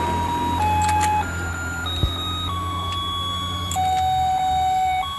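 Battery-powered fish-shaped fishing game toy playing its electronic tune, plain beeping notes one at a time, changing pitch every half second to a second. Under it runs a low hum from the turntable motor that fades about four seconds in, and a few small plastic clicks can be heard.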